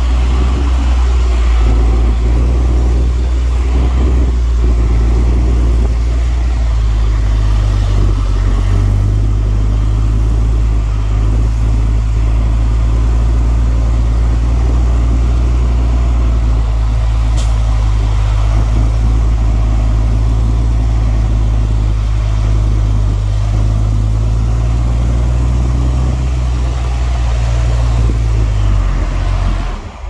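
Heavy diesel engine of an earthmoving machine running steadily with a deep, continuous hum and some mechanical clatter. It drops away just before the end.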